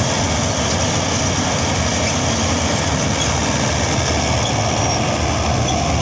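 Dasmesh 9100 combine harvester running close beside a tractor, a loud, steady mix of heavy engine rumble and machinery noise.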